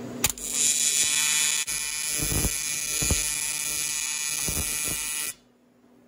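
TIG welding arc on an aluminium Stihl 461 chainsaw cylinder, building up weld to fill a damaged spark plug bore: the arc strikes with a sharp crack about a quarter second in, buzzes steadily and high-pitched, then cuts off suddenly a little after five seconds as the arc is broken.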